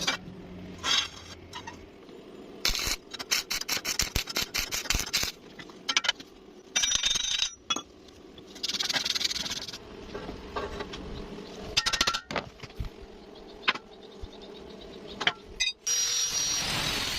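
Metal tools clinking and scraping on metal, with a run of rapid clicking about three seconds in and a brief hiss about nine seconds in.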